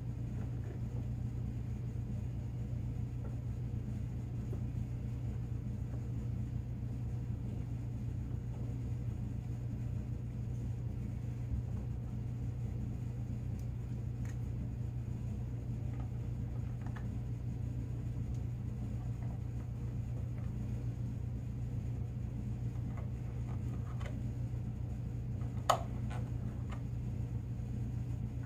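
Steady low hum of background noise, with faint taps and clicks as a metal straightedge and marker are handled on a plastic snowmobile tunnel, and one sharper click a little before the end.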